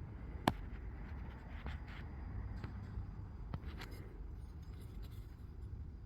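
Handling noise from a welded steel tube sample: a sharp click about half a second in, then a few fainter clicks and taps over a low background rumble.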